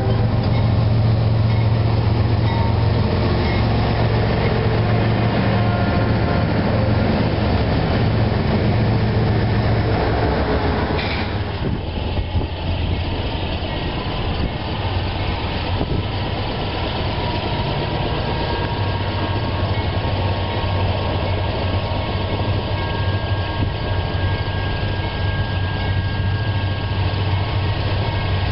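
CSX freight train's GE diesel locomotives passing close with a heavy, steady engine rumble. After about eleven seconds it changes to a slightly quieter, steady rolling rumble of the freight train.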